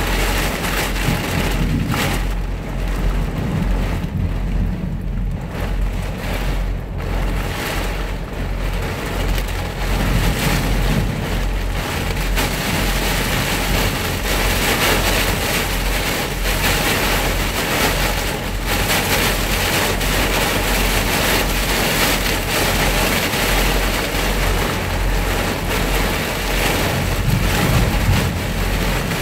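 Heavy thunderstorm rain pelting a semi truck's windshield and cab, growing heavier about ten seconds in, over a steady low hum.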